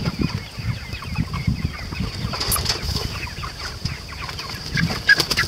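Cornish Cross broiler chickens clucking inside a chicken tractor, with scuffling and bumping low underneath as the birds are chased about.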